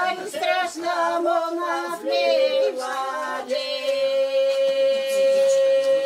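Elderly women singing a traditional folk song unaccompanied, the voices moving through short phrases and then holding one long, steady note through the second half.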